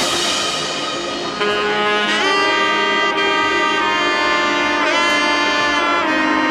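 Background music: long held melodic notes that slide in pitch about two seconds in and again near five seconds.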